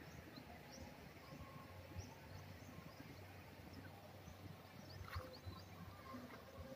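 Faint open-air quiet with scattered short, high bird chirps and one longer falling call about five seconds in.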